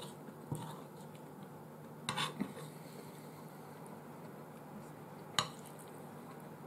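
Cutlery against a plate: a short clatter about two seconds in and a single sharp click about five and a half seconds in, with a fainter tap at the start.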